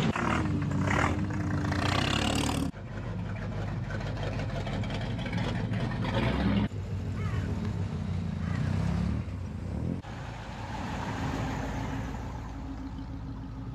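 Classic American V8 cars, a Plymouth Duster 340 and a Ford Thunderbird among them, driving slowly past one after another with their engines running. The engine sound changes abruptly about three times, as one car's sound gives way to the next, and grows fainter near the end.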